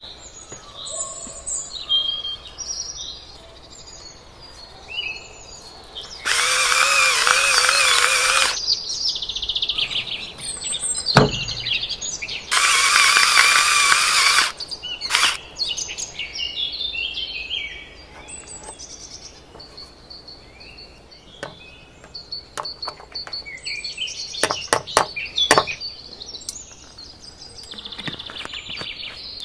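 Small birds chirping on and off, with two loud whirring runs of a small electric motor, each about two seconds long, about six and twelve seconds in. Sharp taps and clicks come later on.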